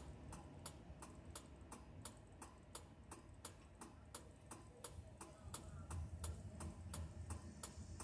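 Vehicle hazard-flasher relay clicking steadily in the cabin, about three clicks a second, over a low rumble that grows in the second half.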